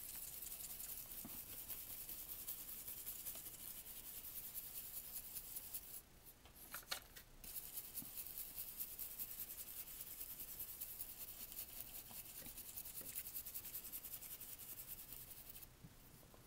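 A round blending brush rubbing ink through a plastic stencil onto cardstock in rapid strokes, giving a steady soft brushing hiss. It pauses briefly around the middle, with a few light clicks, then carries on and stops near the end.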